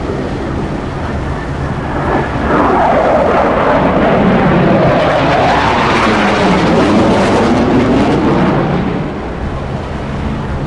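F-35 fighter jet's afterburning turbofan passing overhead in a flyby. A loud jet rush swells about two seconds in, holds with a sweeping, phasing sound as the jet passes, then eases off about nine seconds in.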